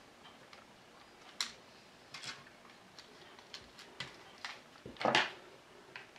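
Small plastic RC buggy gearbox housing being handled as its halves are fitted together and screws are set in: scattered small clicks and taps, with a longer, louder scrape about five seconds in.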